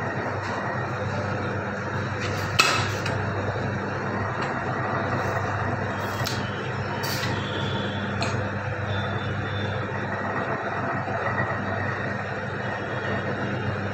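Electric pipe ring-bending roller machine running with a steady hum as stainless steel pipe is rolled into rings. There are a few sharp metallic clinks, the loudest about two and a half seconds in and smaller ones a few seconds later.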